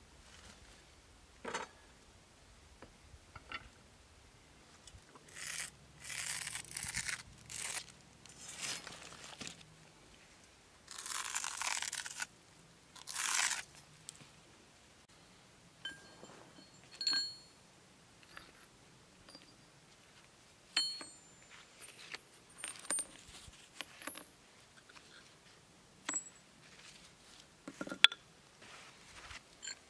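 Several short scraping, crunching noises, then hand-forged steel stone chisels and a hammer set down one at a time on a stone block, each a short metallic clink with a brief ring, the loudest near the end.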